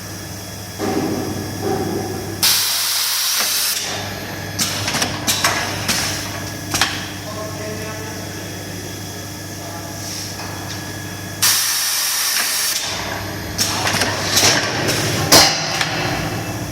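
Diamond-segment welding machine for marble gang-saw blades at work: a steady electrical hum with two loud hissing bursts, about two and eleven seconds in, and scattered clicks and knocks of the mechanism.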